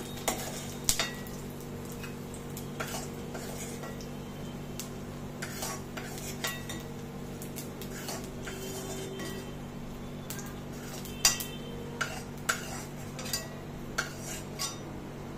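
A spoon scraping and clinking against a kadai as fried coconut, cashews and raisins are scooped out into a bowl, in scattered short taps over a steady low hum.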